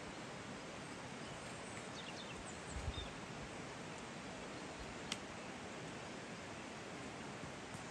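Steady outdoor forest ambience with a few faint, short bird chirps. There is a soft low knock about three seconds in and a single sharp click about five seconds in, which fit handling of a knife and lemon over the board.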